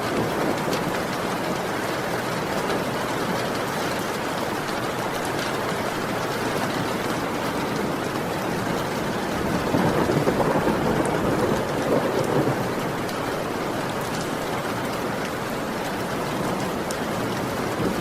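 Heavy rain falling steadily, with a low rumble of thunder swelling up about ten seconds in and fading after a couple of seconds.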